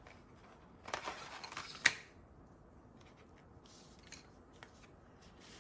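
Colour pencils being handled: a brief clattering rattle that ends in one sharp click, then two faint taps a few seconds later.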